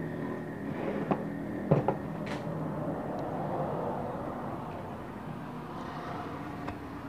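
Wires and plastic connectors being handled and pushed into place inside an opened inverter welding machine: a few sharp clicks, the loudest pair just under two seconds in, over steady background noise.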